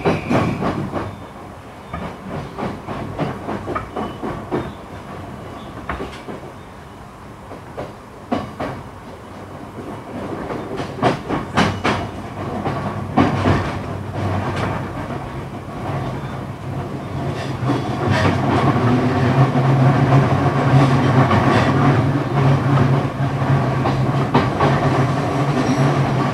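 E235 series electric train rolling through pointwork toward the station, its wheels clicking over rail joints and turnouts. About sixteen seconds in, a steady low hum comes up, grows louder and holds.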